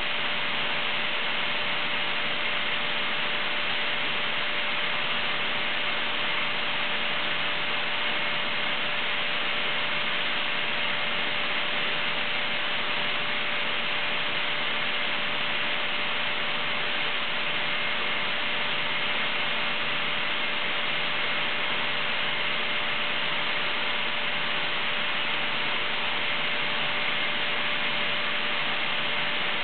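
Atlas Copco ZR 200 two-stage, water-cooled, oil-free rotary screw air compressor running loaded, delivering air at about 7.2 to 7.3 bar. A steady, even rushing noise with a few steady hum tones in it.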